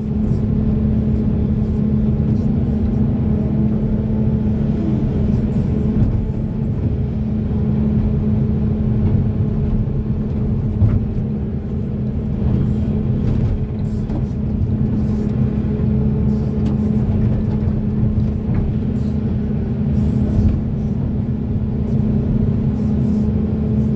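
Large hydraulic excavator's diesel engine running steadily under load, a constant drone with a deep rumble, with a few faint clicks and knocks over it.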